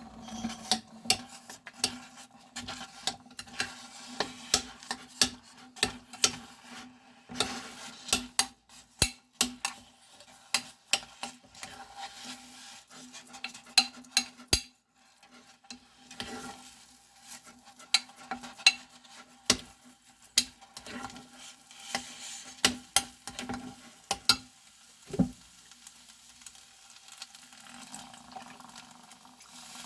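A utensil stirring in a pan, with many irregular clicks, knocks and scrapes against it and a faint sizzle, over a steady low hum.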